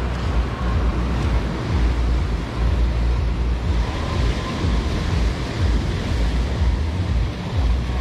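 Wind buffeting the microphone in uneven gusts, over the steady wash of surf breaking on a sandy beach.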